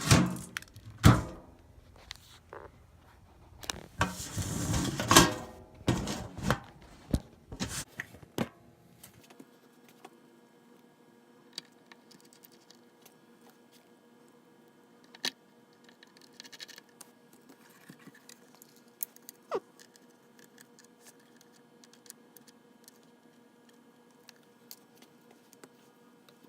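Small metal parts clinking, knocking and rattling as mandolin tuner hardware is handled. The clatter is loudest over the first several seconds, then gives way to a few faint isolated clicks.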